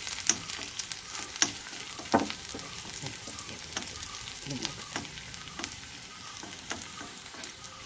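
Sliced shallots and dried red chillies sizzling in hot oil as a tempering in a nonstick kadai. A steel spoon stirs and scrapes them, giving sharp ticks against the pan over a steady frying hiss; the loudest tick comes about two seconds in.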